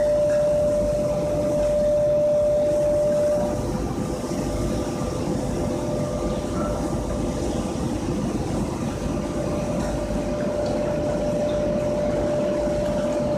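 Fish-feed pellet drying line running: a rotary drum dryer and its conveyor give a steady machinery rumble with a steady whine that fades out about three and a half seconds in and comes back near the end.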